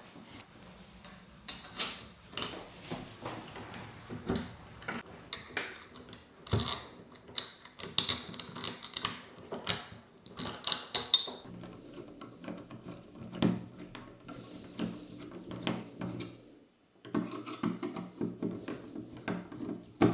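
Metal door hardware clicking and clinking as a doorknob set and latch are handled and fitted, with a low steady hum and rapid ticking in the second half.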